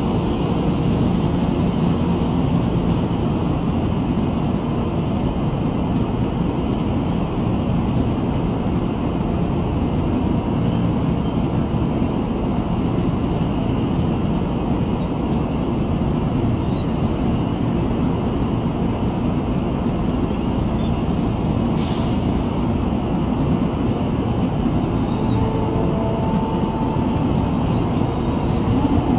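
Train at the station, a steady low rumble, with a fainter higher whine that fades out in the first ten seconds or so.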